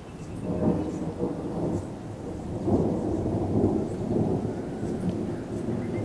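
Rolling thunder: a low rumble that swells about half a second in, peaks again around the middle, then slowly trails off.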